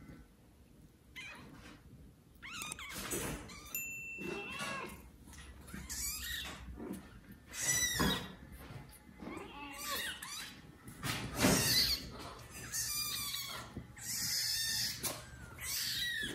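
Newborn kittens meowing loudly over and over, thin high-pitched cries about one a second, calling for their mother.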